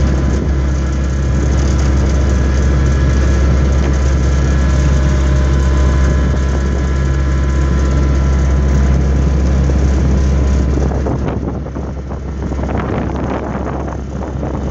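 An engine idling steadily. About eleven seconds in, its sound drops and thins.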